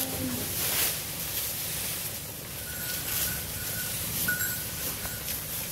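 Cows eating fresh green grass at a feeding trough: the grass rustles, with two short breathy hisses a couple of seconds apart.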